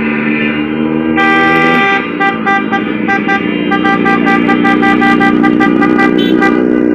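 Car horns honking over street traffic. A low horn is held for the first couple of seconds. A higher-pitched horn comes in about a second in and, from about two seconds, honks in quick short beeps, about three a second.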